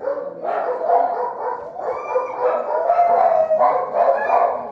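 Many kennelled dogs barking and howling at once, their calls overlapping without a break, with one drawn-out howl in the middle.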